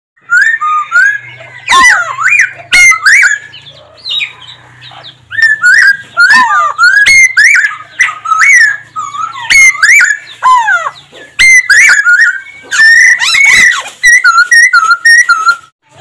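Black-throated laughingthrush singing loud, clear whistled phrases that glide up and down, with sharp clicks between some of them. Near the end comes a run of short repeated notes, about three a second.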